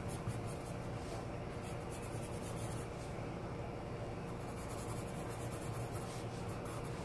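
Pencil scratching on paper in rapid, repeated shading strokes, over a faint steady low hum.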